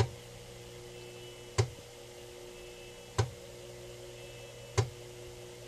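Floppy disk drive head stepping to the next track while writing a 40-track disc: four sharp clicks about a second and a half apart, once per track, over a steady low hum.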